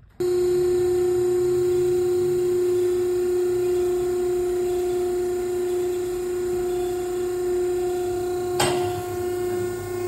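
Max-Pak MP48HD vertical baler's three-phase electric motor and hydraulic pump switching on suddenly and running with a steady, even hum-whine. A single sharp knock comes near the end.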